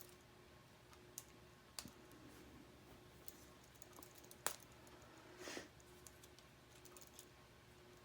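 Faint clicks of plastic K'nex connectors and rods as ride cages are snapped onto the model, a few separate clicks with the loudest about four and a half seconds in and a short rustle of handled parts soon after.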